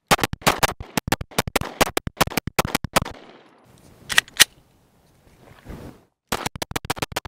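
Glock 19 9mm pistol with a GFlex binary trigger fired rapidly, a shot on each pull and each release of the trigger: a fast string at about six shots a second for some three seconds, a pause, two quick shots about four seconds in, then another fast string near the end.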